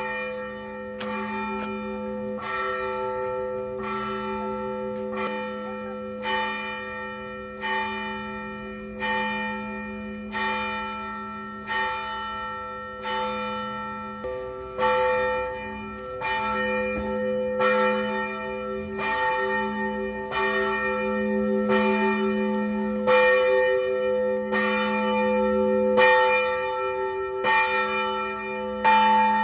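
Russian Orthodox church bells rung to call the faithful to a service: the smaller bells are struck in a steady repeating pattern, about one to two strikes a second, over the ringing tones of the larger bells. It grows louder about halfway through.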